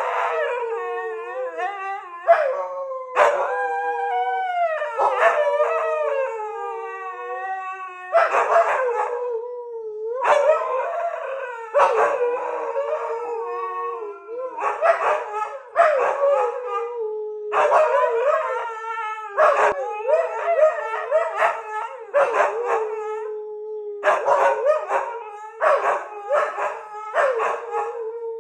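Siberian huskies howling: a long, steady howl held underneath, with shorter rising-and-falling howls overlapping it every second or two.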